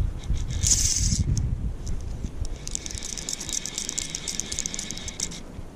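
Wind buffeting the microphone, heaviest in the first two seconds. From about the middle until near the end comes a fast run of high clicking from a fly reel's ratchet as a hooked rainbow trout is played.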